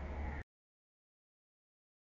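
Low rumbling outdoor background noise that cuts off abruptly about half a second in, leaving dead silence for the rest.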